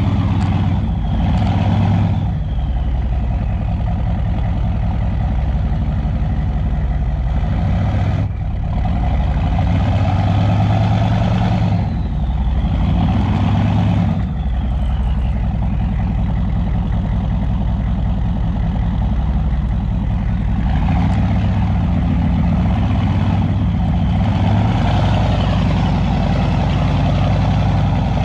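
Chevy K2500's 6.5-litre V8 turbo diesel running loud through a 4-inch straight pipe. The engine note rises and falls several times as it comes on and off the throttle, and a faint high turbo whistle falls away after some of the let-offs.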